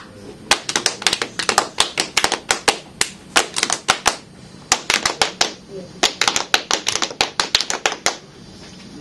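Hand claps and slaps from several people, coming in rapid flurries of sharp smacks separated by short pauses.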